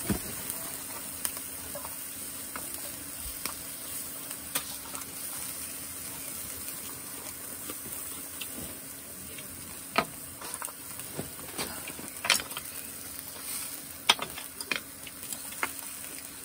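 Beef and mushrooms sizzling on the wire grate of a small tabletop grill, a steady hiss, with a few sharp clicks of tongs and chopsticks against the grate in the second half.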